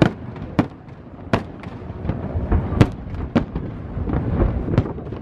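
Aerial firework shells bursting in an irregular string of sharp bangs about every half second, with a low rumble between them.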